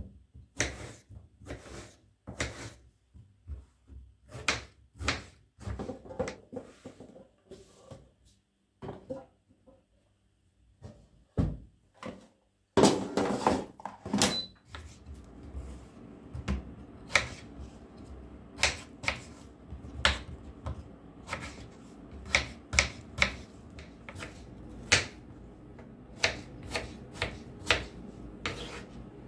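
Irregular clicks and knocks of household objects being handled, set down and moved. There is a short quiet spell about a third of the way in, a louder cluster of knocks just before halfway, and after that a steady low hum runs under the clicks.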